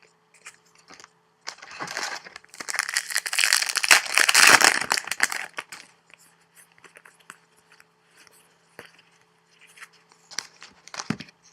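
Trading card pack wrapper torn open and crumpled in the hands: a few seconds of loud, dense crinkling, then quieter handling of the cards with a few light clicks near the end.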